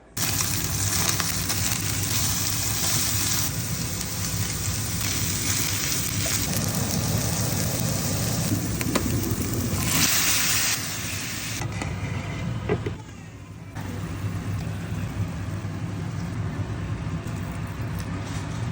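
Food sizzling and frying in a hot pan, a steady hiss that starts suddenly, swells briefly about ten seconds in and dips for a moment a few seconds later.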